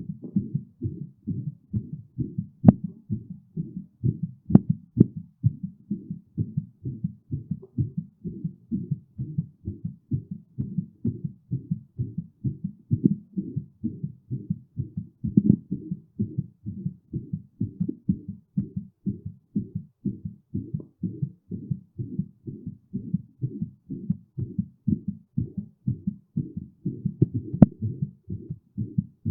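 Human heartbeat, its lub-dub thuds in a fast, steady rhythm: a heart rate raised by physical exertion. A few sharp clicks break in, near the start and near the end.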